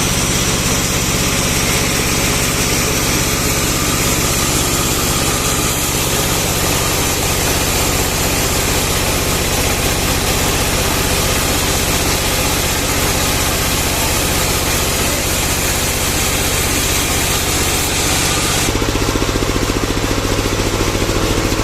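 Bandsaw sawmill machinery running steadily under a loud, dense hiss. About three seconds before the end the high hiss stops abruptly and the engine note changes.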